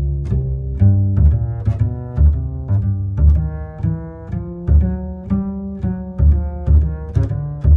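Background music: low plucked and bowed string notes over a steady beat of about two strikes a second.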